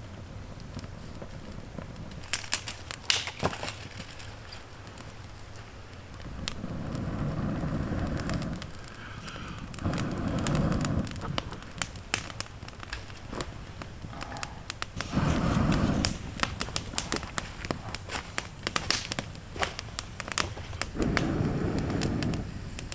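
Campfire crackling, with many sharp, irregular pops. Four louder low swells of a second or two each come through over it.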